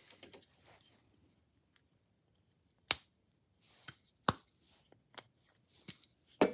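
A few sharp wooden knocks and clicks from a pine board being handled on the metal table of a drill press, the loudest about three and four seconds in, with soft rustling between them.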